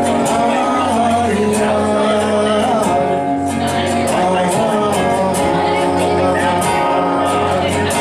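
Acoustic guitars playing with a man singing long held notes.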